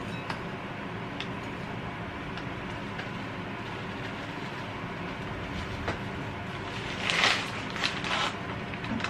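Steady mechanical hum throughout, with a few light clicks and, about seven seconds in, a short rustling scrape as a pork cutlet is pressed into panko breadcrumbs.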